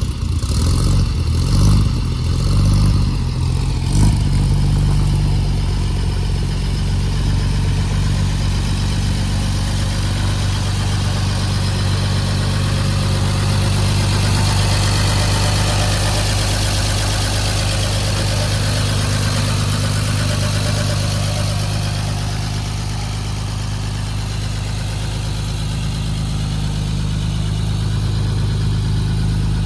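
1954 Chevrolet pickup's engine running, uneven and surging for the first few seconds, then settling into a steady idle.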